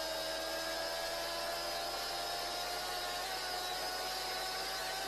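A vehicle engine running at speed, its whine rising slowly as it accelerates, over heavy wind and road noise.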